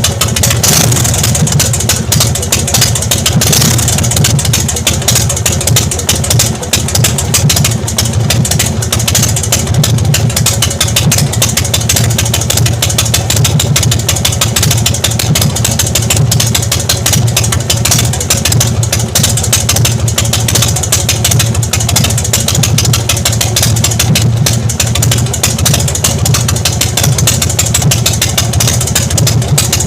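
Big Dog motorcycle's V-twin engine idling steadily after its tappet oil screen was cleaned and refitted.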